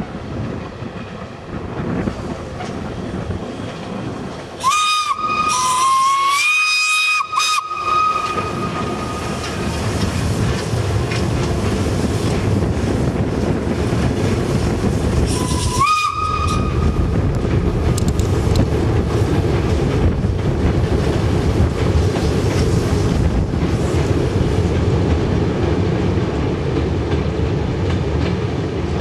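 Steam locomotive whistle blowing about five seconds in, a few seconds of blasts with short breaks, then one short blast again around sixteen seconds. Around the whistles, the steam train rolls steadily with a rumble and rail clatter that grows louder from about ten seconds in as it crosses the viaduct.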